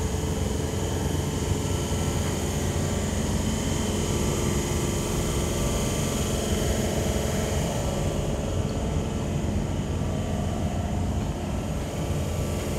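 Steady hum of a V-set intercity electric train standing at the platform, its onboard equipment running.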